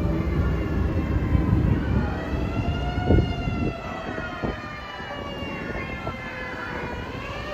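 Fire rescue truck's mechanical motor siren wailing during an emergency run. Its pitch climbs for about three seconds, slowly falls, then starts climbing again near the end, over a low rumble that eases after about three and a half seconds.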